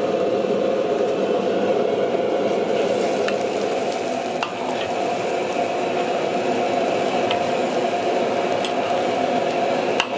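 Cut snake pieces cooking in water in an iron wok: a steady sizzling hiss as a ladle stirs them, with a few light clicks of the ladle against the wok, the sharpest near the end.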